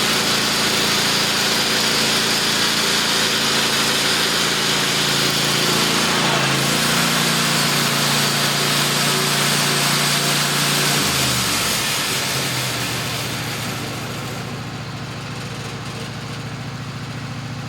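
Portable sawmill engine running at speed with a high hiss, then throttling down about two-thirds of the way through, its pitch dropping as it settles into a quieter, steady idle.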